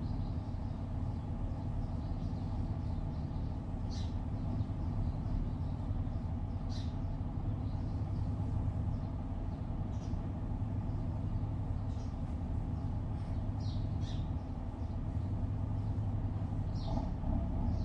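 City road traffic: a steady low rumble of many vehicles, with short high bird chirps scattered every few seconds.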